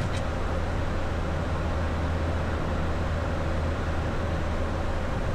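Steady flight-deck noise of a Boeing 737-800 climbing at altitude: an even rush with a steady low hum underneath.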